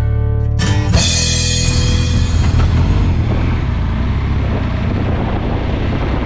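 Background rock music with drums; a loud hit about half a second in rings out slowly.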